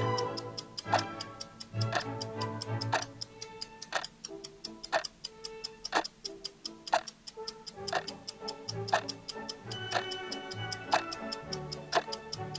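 Clock ticking sound effect of a countdown timer: a sharp tick once a second, with fainter quick ticks between, over background music.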